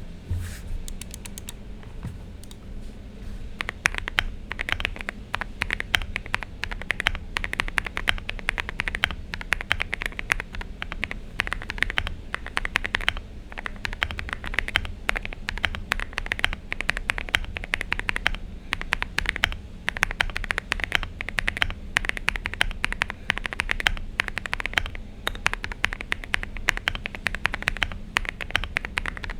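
Typing on a Meletrix Zoom75 mechanical keyboard fitted with Boba LT switches and AKKO ASA-profile keycaps: a few scattered keystrokes at first, then fast continuous typing, a dense stream of sharp key clacks.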